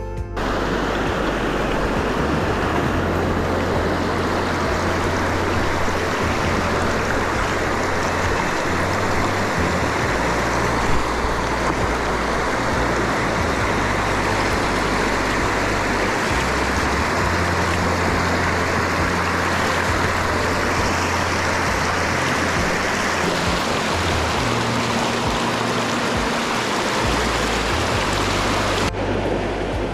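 Mountain stream rushing steadily over rocks, an even hiss of flowing water with a low rumble underneath. The sound turns duller about a second before the end.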